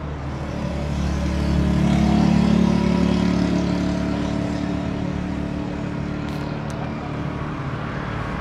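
A motor vehicle engine running, swelling to its loudest about two seconds in and then slowly fading.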